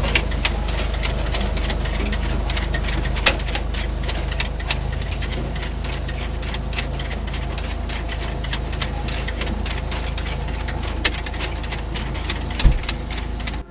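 Tractor-drawn potato machine working: a steady low engine drone under a dense, irregular clatter of clicks and knocks from its moving parts, with a couple of louder knocks.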